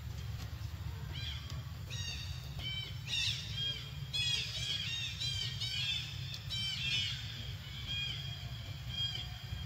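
Infant macaque giving a string of short, high squealing calls, each one rising and falling in pitch, in quick runs. A steady low hum lies underneath.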